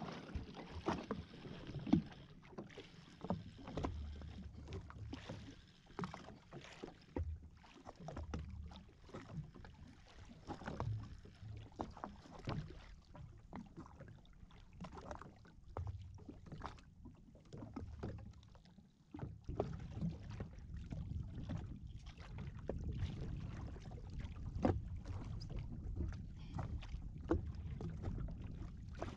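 Small waves lapping and slapping against a drifting jet ski's hull, with wind buffeting the microphone and scattered light knocks and clicks throughout.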